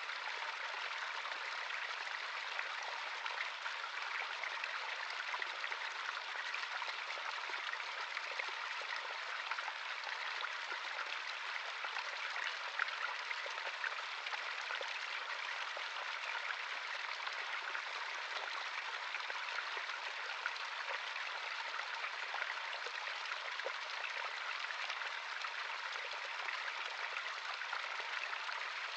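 A natural stream of running water, flowing steadily with a fine splashing and trickling texture.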